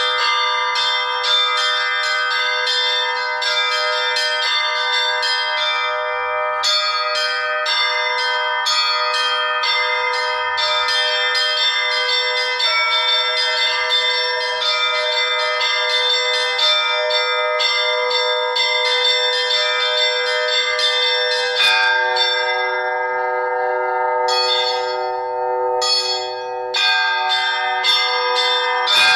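Orthodox church bells being rung, with quick repeated strikes on the smaller bells over the ringing of larger ones. About 22 seconds in, the pattern changes and a lower bell joins.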